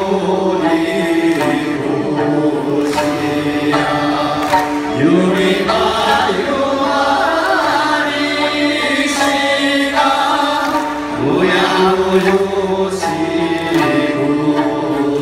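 Okinawan folk song performed live by a large group singing in unison to massed sanshin accompaniment, with long held and sliding vocal notes.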